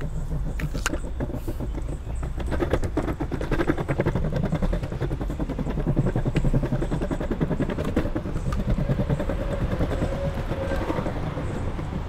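Longboard wheels rolling over pavement slabs: a steady rumble with rapid clacks as they cross joints and rough paving, louder from about two seconds in. Traffic hums alongside, with an engine note near the end.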